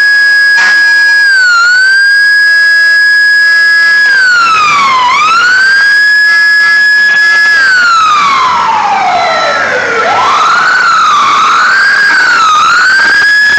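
An emergency vehicle's siren sounding very loud and close. It holds a high steady tone with a couple of dips in pitch, then about eight seconds in glides slowly down to a low tone. It shoots back up, wobbles rapidly a few times and settles on the steady high tone near the end.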